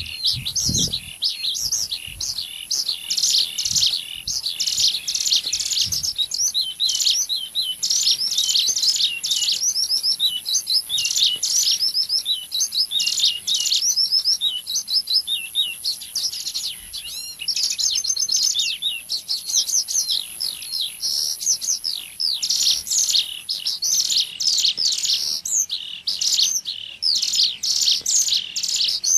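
Bird-lure recording of ciblek gunung (a prinia) calls: a dense, unbroken stream of rapid high chirps and short trills, several calls layered together.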